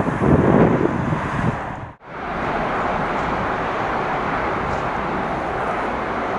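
Low rumbling that cuts off abruptly about two seconds in, followed by a steady rushing noise of an electric train approaching, with wind on the microphone.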